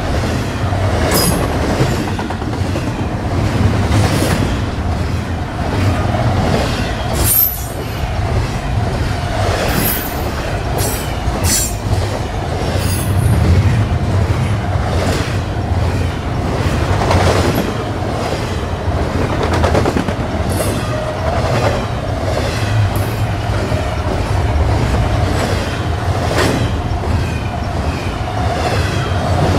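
Canadian National double-stack container well cars rolling past close by: a steady low rumble and clatter of steel wheels on the rails. Brief high-pitched wheel squeals come every few seconds, several close together about ten to thirteen seconds in.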